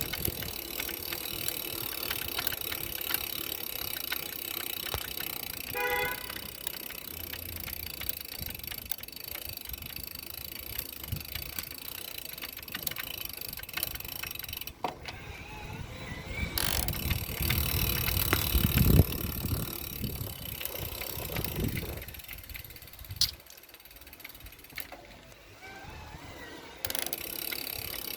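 Vehicle freewheeling with a repeated knocking noise over steady road and wind noise. There is a short pitched tone about six seconds in, and a low rumble swells near the middle.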